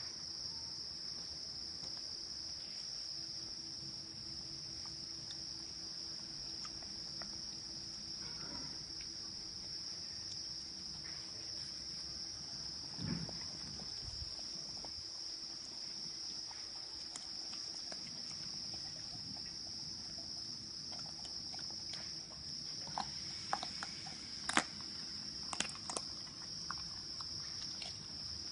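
Crickets trilling in a steady high-pitched chorus. About halfway there is one dull thump, and near the end a cluster of sharp clicks and crunches as a Labrador eats bones from a plastic tub.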